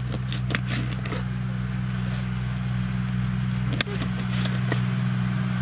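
A large knife cutting through cooked seer fish, with a few sharp taps of the blade on the work surface, over a steady low hum.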